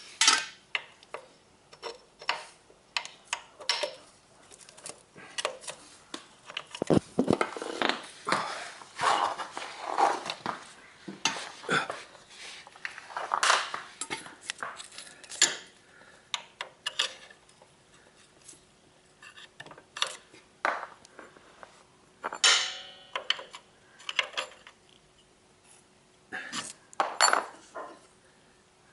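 Steel spanner and motorcycle rear suspension parts clinking, knocking and scraping irregularly as the rear shock is worked into its mounting to line up the bolt, with a quieter spell midway.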